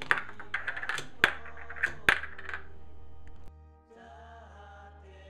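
Woven aluminum-can ashtray spinning and wobbling on a wooden table, making a run of sharp metallic clinks and rattles that stops about two and a half seconds in. Background music runs underneath and drops to a softer tune about three and a half seconds in.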